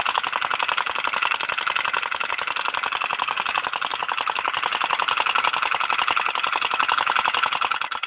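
Homemade flame-eater engine running fast and steady: a rapid, even clatter repeating many times a second.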